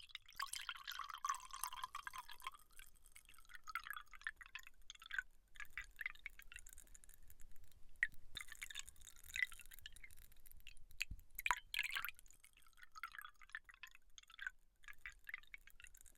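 Fingers working a wet hair-care gel close to the microphone: quiet, sticky crackles and small clicks in irregular runs with short pauses.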